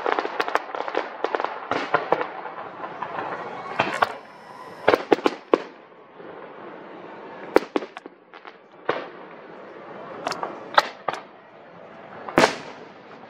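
Aerial fireworks shells bursting: a dense run of crackling pops, then single bangs spaced about a second or two apart, the loudest near the end.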